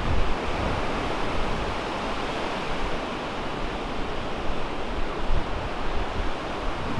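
Ocean surf breaking and washing in around the pier pilings, a steady rushing wash, with wind rumbling on the microphone at times.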